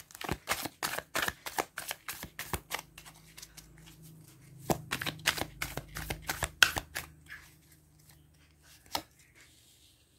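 A deck of tarot cards shuffled by hand: a quick run of card taps and flicks, about four or five a second, thinning out about seven seconds in, then a single click near the end as a card is laid down.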